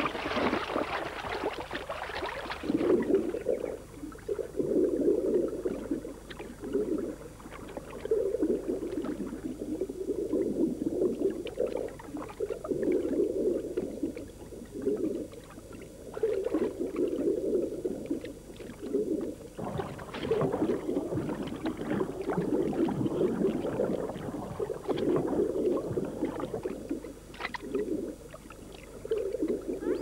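Water splashing hard for the first couple of seconds, then muffled underwater sloshing and swishing from giant otters swimming, coming in slow swells about every one and a half to two seconds, with a few small bubbly clicks.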